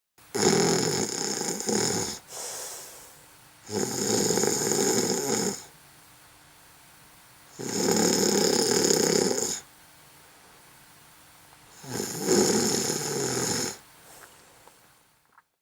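A person snoring: four snores, each about two seconds long, coming roughly every four seconds with quiet in between.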